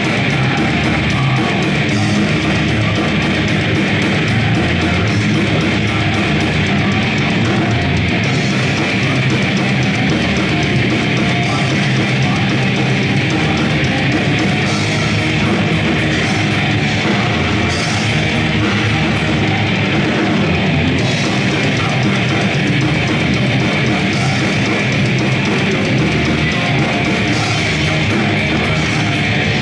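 Death metal band playing live: distorted electric guitars, bass and a drum kit, with harsh screamed vocals. The song is loud and continuous, with no breaks.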